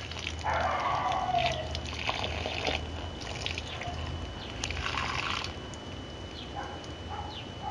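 Rusty condensate water trickling and splashing from an air compressor tank's drain into a container, in two stretches of about two seconds each. The water is thick with rust that has collected in the tank from not being drained.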